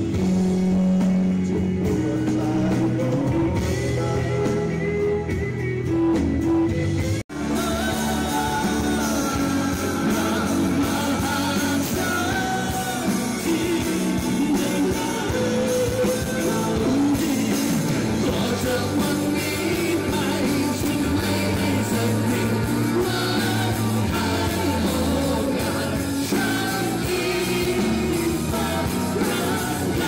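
Live rock band playing, with guitars and drums behind a male lead singer. About seven seconds in the sound cuts out for a moment, and another song picks up with several singers singing together over the band.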